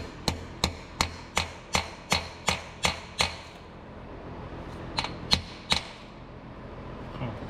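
Hammer tapping small steel block-off plugs into the oil passages of a GM 5.3L LT engine's lifter valley, to shut off oil to the cylinder-deactivation (DOD) lifter solenoids. Quick ringing metallic taps, about three a second for some three seconds, then a pause and three more taps about five seconds in.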